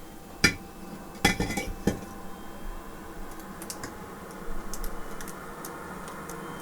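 Small hard tools or parts clinking and tapping on a repair bench. There is a sharp click about half a second in, a quick run of clinks around a second and a half, then lighter scattered ticks.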